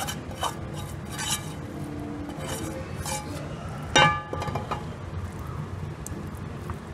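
Wooden spoon scraping thick white sauce out of a frying pan onto lasagna sheets in a metal baking tray, with short scrapes and clatters. About four seconds in, the pan knocks against the tray in one loud metallic clink that rings briefly, over a steady low hum.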